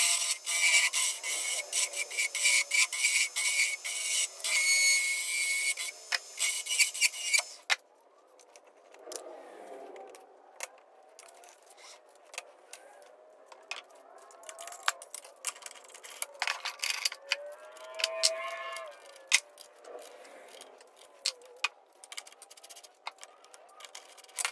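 A carbide turning tool cutting into a spinning maple blank on a wood lathe: a loud, continuous scraping hiss with rapid ticks. It cuts off about eight seconds in, leaving quieter scattered clicks and handling sounds on the stopped workpiece.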